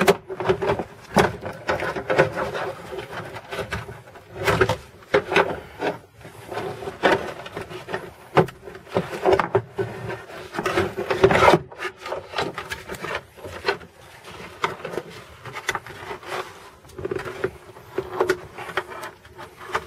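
Plastic interior trim panels of a car being worked loose and pulled off by hand: irregular clicks, knocks and rubbing scrapes.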